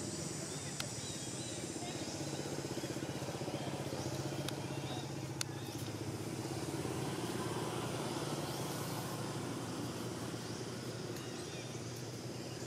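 Steady low hum of a running engine, with a faint high hiss that fades after about three seconds and a few light clicks.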